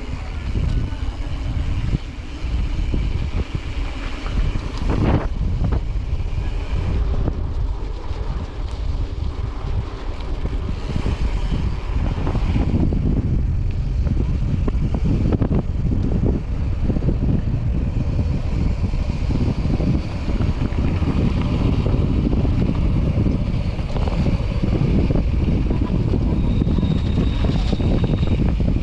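Wind buffeting the microphone over a steady, rumbling roar from riding a mountain bike along a dirt trail. A brief high squeal comes near the end.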